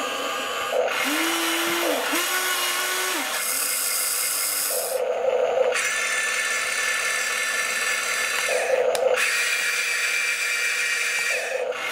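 Small electric motors of a Huina 1593 RC excavator whining in runs of one to three seconds as the arm and the grapple claw attachment are driven, the pitch changing each time one function stops and another starts.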